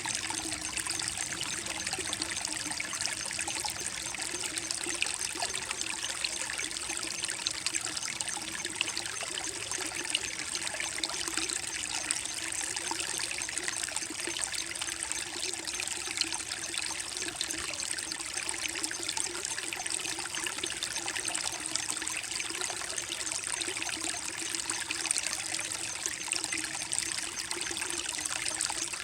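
Shallow creek water trickling and burbling steadily over mossy rocks.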